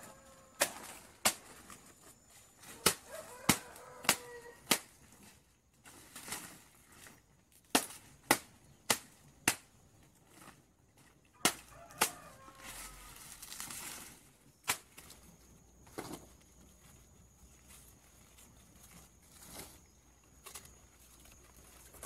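Machete blade chopping cut banana leaves on the ground: sharp strikes in quick runs about 0.6 s apart, thinning out and stopping after about 16 s. The leaves are being cut up to leave as mulch on the soil.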